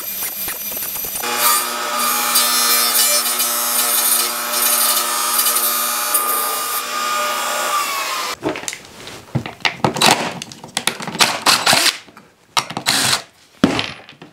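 Table saw cutting 3/4-inch plywood, trimming the corners off a blank to round it into a 14-inch circle: a steady high whine from about a second in until about eight seconds, dropping slightly in pitch as it ends. After it come scattered knocks and clatters of the wooden disc being handled on a bench.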